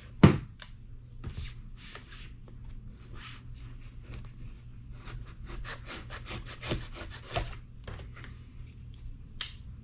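Hands working at the flashlight's cardboard packaging: a knock near the start, then a long run of short rubbing and scraping strokes, quicker and closer together in the second half, as the box is worked open.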